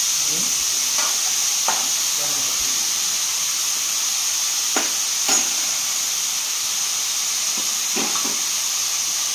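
Sliced vegetables and onions frying in a metal pan, a steady sizzling hiss, with a few sharp clicks of a metal slotted spoon against the pan.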